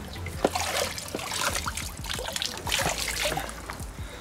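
Pond water splashing and trickling as a submersible pond pump in a plastic mesh filter box is moved in the water and lifted out, water running off it in irregular splashes and drips.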